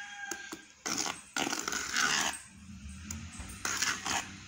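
Wire whisk stirring thick egg-and-sugar cake batter in a steel bowl, the wires scraping against the metal in three short runs of strokes, the longest about a second in.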